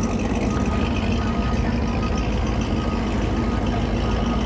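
Boat engine idling steadily, a continuous low rumble just after being started.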